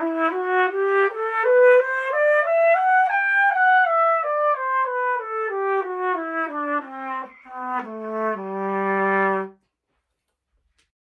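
Cornet playing a run of separately tongued notes that climbs step by step to a high note and comes back down, then holds one long low final note that cuts off cleanly.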